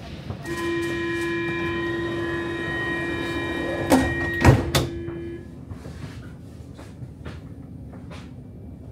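Subway train's door-closing warning tone sounding steadily for about five seconds while the sliding doors shut with three loud knocks about four to five seconds in. After that, the standing train's low steady hum.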